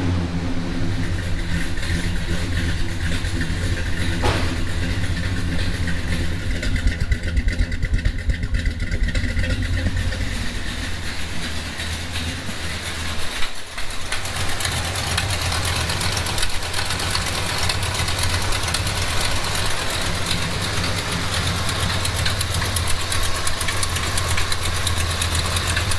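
Small-block Mopar V8 idling steadily through new stainless shorty headers, with a brief break about halfway through. A light tick or popping from the front of the engine remains, which the owner notes has still not been cured.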